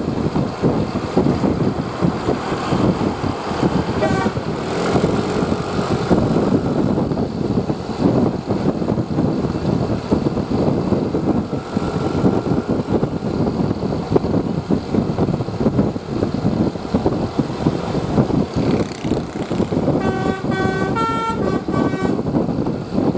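Steady road-traffic noise with wind buffeting the microphone, then near the end a bus's multi-tone telolet horn plays a quick melody of several stepped notes; a brief rising horn note sounds about four seconds in.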